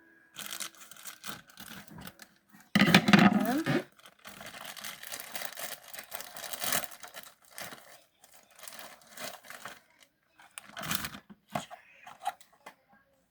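Packaging being torn open and crinkled by hand, in irregular rustling bursts, the loudest about three seconds in.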